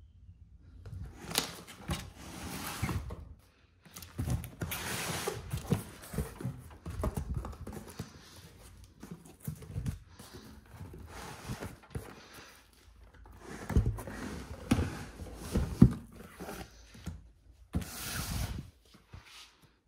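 A cardboard box and its packing being handled and opened: bursts of rustling and scraping, with a few sharp knocks about two-thirds of the way through.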